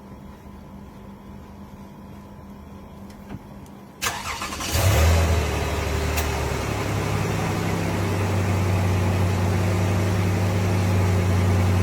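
A car engine is started about four seconds in: a brief crank, then it catches and settles into a steady idle.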